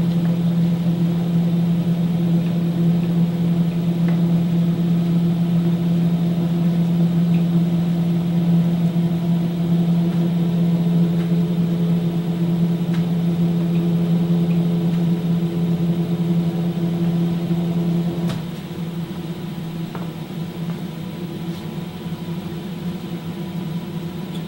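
DIY CNC router's axis drive motors jogging the gantry at a steady speed, a steady hum that stops with a faint click about 18 seconds in.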